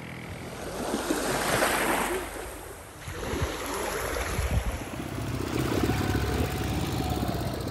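Small waves washing in clear shallows, with wind rumbling on the microphone; the sound dips and changes about three seconds in.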